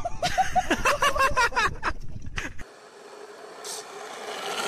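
High-pitched laughter, quick repeated 'ha' sounds, for about the first two and a half seconds. Then a skateboard's wheels rolling over rough asphalt, a steady rushing noise that grows louder toward the end.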